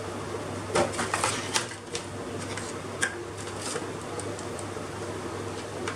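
Plastic spice box and its lid clicking and knocking as it is handled and opened: a run of short light clicks, most of them in the first four seconds, over a steady low hum.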